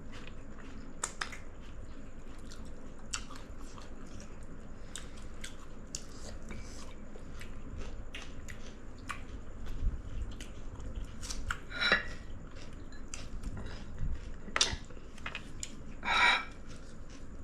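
Close-up chewing and biting of someone eating, with many small mouth clicks and a few louder brief sounds in the second half.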